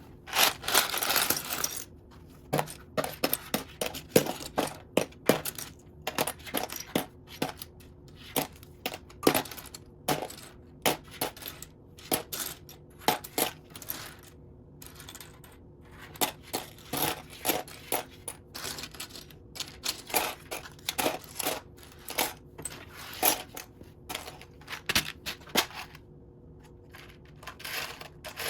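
Loose plastic Lego pieces clattering and clicking as they are rummaged through and picked out of a pile. There is a dense burst of rummaging in the first couple of seconds, then scattered single clicks and short rattles.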